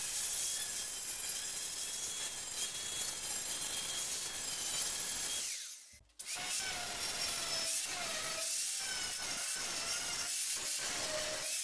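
Angle grinder grinding a welded corner joint of a square steel-tube frame, the disc rasping against the metal under a high motor whine that shifts in pitch with the load. The grinding breaks off briefly about six seconds in, then goes on again.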